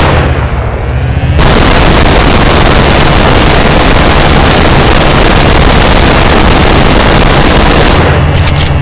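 Minigun sound effect: the barrels' spinning whine, then continuous rapid fire from about a second and a half in for some six seconds, cutting off near the end as the spinning whine comes back.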